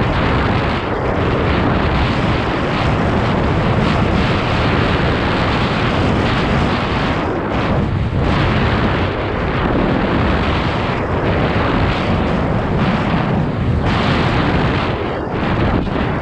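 Loud, continuous wind rumble buffeting a helmet-mounted camera's microphone at downhill mountain-bike speed, mixed with the bike's tyres rolling over a packed dirt trail. It dips briefly a couple of times.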